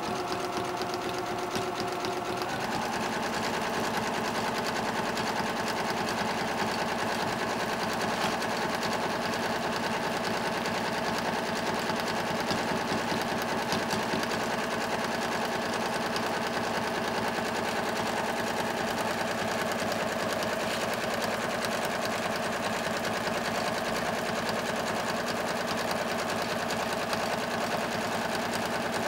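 Domestic sewing machine running steadily, sewing a dense zigzag satin stitch (short stitch length) around the edge of a fabric appliqué.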